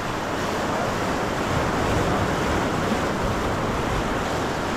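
Pacific surf washing against a rocky shore: a steady rush of breaking waves that swells a little midway, with wind buffeting the microphone.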